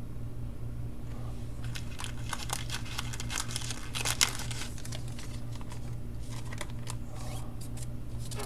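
Trading cards being handled on a table: a run of crinkling, clicking rustles of card stock, over a steady low hum.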